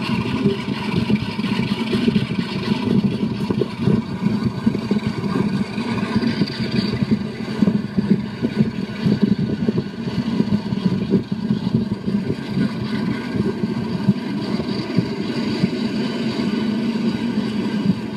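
Diesel-hauled passenger train running steadily, heard from a carriage window: a continuous rumble of the train on the track, played back through laptop speakers.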